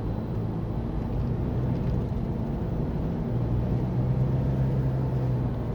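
Steady low engine hum with a constant drone and a dense low rumble, typical of a vehicle engine running.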